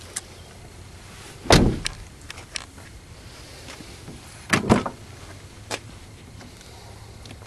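Mazda 626 sedan's doors: a car door is shut with a heavy thud about a second and a half in, then about three seconds later a double clunk as the rear door latch is pulled and the door swings open, with a few lighter clicks around them.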